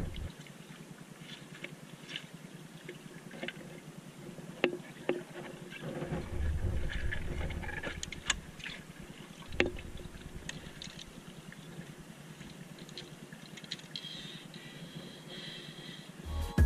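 Faint water lapping at the rocks, with scattered small clicks and knocks as snorkel fins and mask are pulled on, and a brief low rumble about six seconds in.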